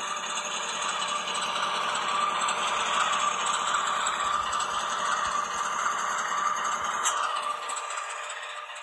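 Model train running along the track with a steady mechanical rattle and hum, fading away about seven and a half seconds in; a short click sounds just before the fade.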